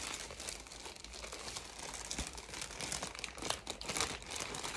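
Packaging crinkling and rustling as it is handled and worked open, with many small irregular crackles throughout.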